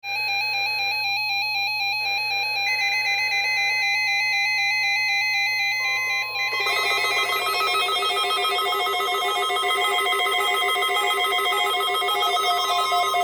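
Music made of held electronic tones, growing fuller about six and a half seconds in.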